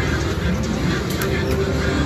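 Reel slot machine spinning amid steady casino-floor noise: the machine's electronic sounds over a dense mix of background machine tones and chatter.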